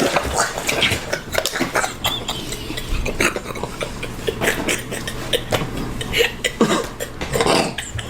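Irregular clicking and clattering of small hard objects, many short knocks in a row.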